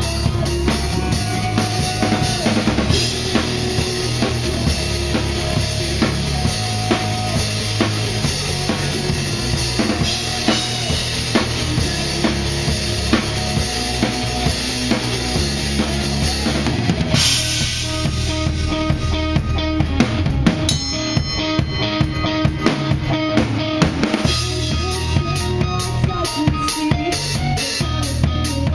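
Live rock band playing a song, the drum kit loudest: kick, snare and hi-hat keeping a steady beat over bass and held chords. About two-thirds through, the band drops to a sparser part for several seconds before the full, busy beat comes back.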